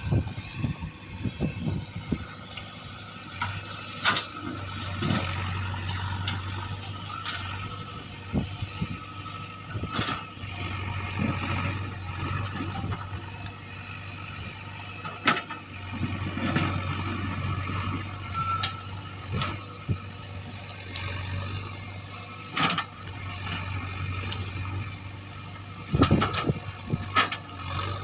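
JCB 3DX backhoe loader's diesel engine running under varying load while it digs, with repeated sharp clanks and knocks scattered throughout.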